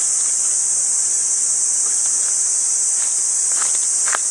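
Steady, loud, high-pitched insect chorus from the surrounding summer woods. Near the end come a few short scuffs on gravel.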